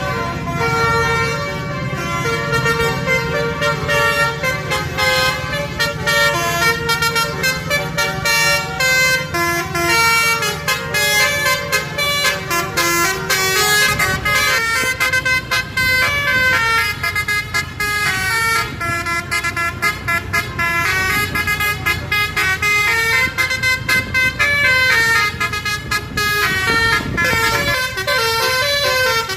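Basuri telolet horn, a bus's multi-trumpet musical air horn, playing a fast melody of stepped notes without a break. A low rumble sits underneath and fades about halfway through.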